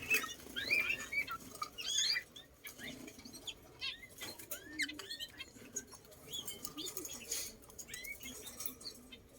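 Birds chirping in many short, rising and falling calls, most busily in the first couple of seconds and again midway, with wing flutters and light clicks among them.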